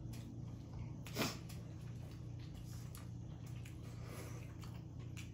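Close-up eating sounds of boiled crawfish being peeled and eaten: one short loud mouth noise about a second in, with faint clicks of shell and soft smacking around it, over a steady low hum.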